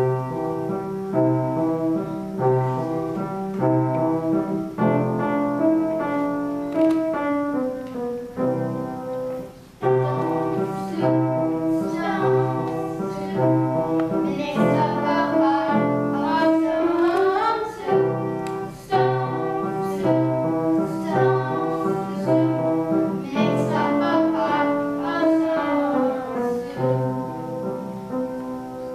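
Children singing a song together to piano accompaniment, with a steady bass beat under the tune.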